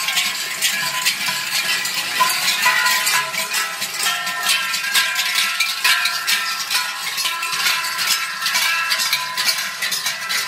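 Many large cowbells strapped to the backs of walking Buttnmandl and Krampus figures, swinging with each step and clanging without pause in a thick, overlapping din of ringing bell tones.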